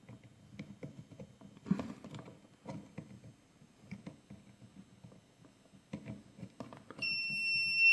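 Faint clicks and rustling of ribbon cable connectors being handled, then about seven seconds in a steady high-pitched beep from the RepRap Discount Full Graphic Smart Controller's buzzer starts and holds on, a sign that something is wrong with how the display is wired.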